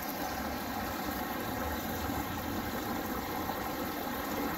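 Steady rushing of a small rocky creek running over low cascades.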